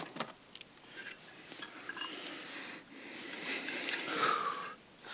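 Handling noises: light clicks, taps and rustling as fire alarm devices are picked up, moved and set down.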